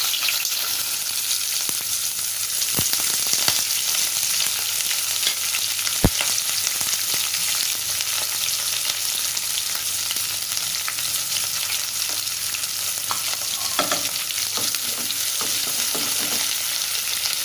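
Onions and green chillies sizzling steadily in hot oil with whole spices in a cooking pan, a spoon stirring with scattered clicks against the pan and one sharper knock about six seconds in.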